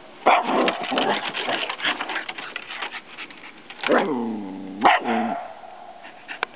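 Dog barking: a quick run of barks, then two longer, drawn-out barks about four and five seconds in.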